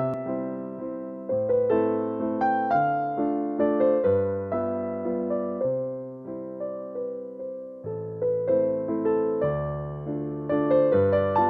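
Background music: a gentle piano piece of chords and melody notes struck at a steady pace, each note fading after it is played.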